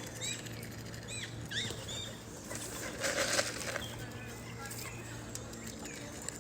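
A bird's wings flapping in a short noisy burst about three seconds in, the loudest sound here. Short high chirps come before it and again later.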